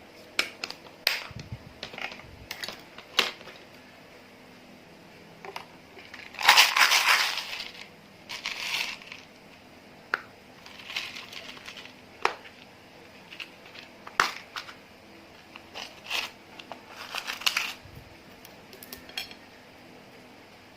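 Slime being squeezed, pressed and mixed by hand: scattered sharp clicks and pops, with longer crackling squishes, the loudest about six and a half to eight seconds in.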